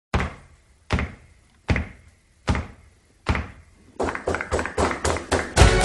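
Music starting with five slow, evenly spaced heavy drum hits that ring out, then quicker hits building up, with the full song coming in near the end.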